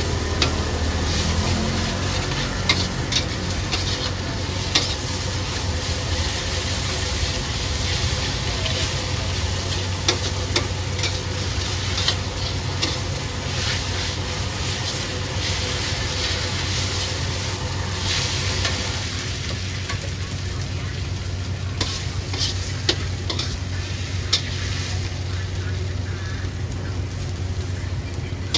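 Noodles, egg and greens sizzling in a steel wok while a metal spatula scrapes and clanks against the pan in irregular strokes, over a steady low hum.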